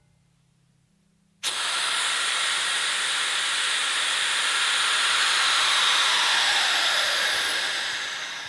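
Air rushing back into an acrylic vacuum chamber as the vacuum is released: a loud hiss that starts suddenly about a second and a half in, with a tone inside it that slowly falls, and tapers off near the end as the pressure evens out.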